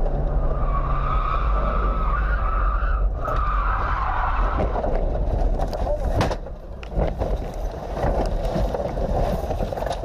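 Car tyres squealing in a skid for about four seconds over a low rumble, then a run of knocks and rattles as a car leaves the road and crashes over rough ground.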